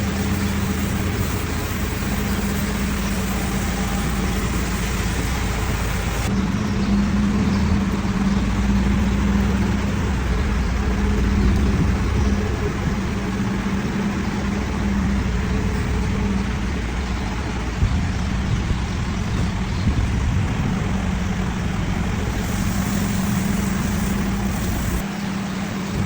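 Automatic bus wash running over a bus: a steady machine hum and low rumble under the rushing hiss of high-pressure water spray.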